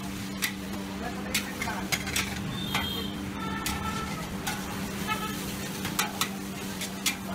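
Metal spatula scraping and clacking against a steel wok as noodles are stir-fried, with sharp knocks every second or so and the food sizzling. A steady low hum runs underneath.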